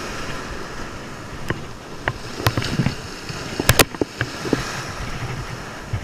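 Ocean surf washing in the shallows, a steady rush of breaking water, with a few sharp clicks and knocks over it, the loudest two close together near the middle.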